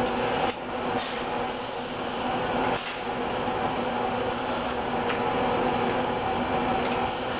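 Motoman SDA10 dual-arm robot's servo motors and gear drives whirring steadily as its arms move, with a hum of several steady tones; the sound dips briefly about half a second in and again near three seconds.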